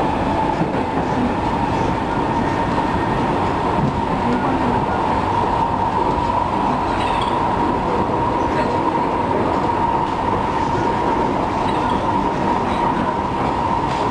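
Singapore MRT train running at speed: a steady rumble with a steady whine held at one pitch.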